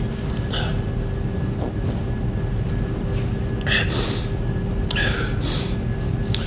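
Steady low rumble of room noise under a faint constant hum, with a few short hissy sounds just past the halfway mark.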